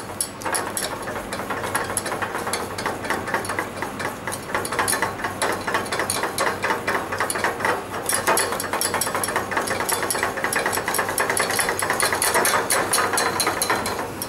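Wire balloon whisk rattling against the sides and bottom of a stainless steel saucepan in fast, even strokes, several clicks a second, a little louder in the second half. The whisk is working butter into hot caramel and cream to make butterscotch sauce.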